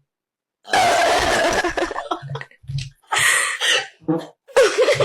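A woman's long, loud burp starting just under a second in, after a brief cut to silence, followed by a short cough-like burst and a few short vocal sounds.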